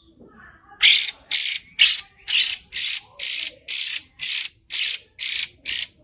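Female hwamei (Chinese hwamei laughingthrush) giving loud, rasping calls in a fast, even series of about two a second, starting about a second in.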